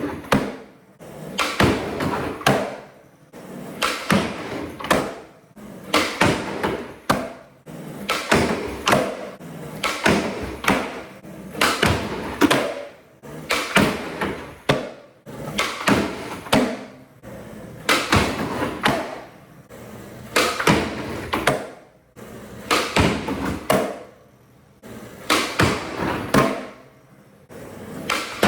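Skateboard being ridden and tricked: wheels rolling on concrete and sharp clacks of tail pops, board and truck impacts and landings, coming in clusters one after another.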